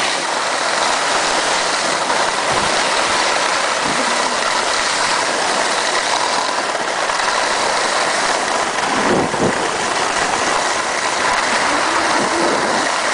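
Steady, loud rushing noise of skiing downhill: skis sliding over packed snow, mixed with wind across the microphone of a skier filming on the move.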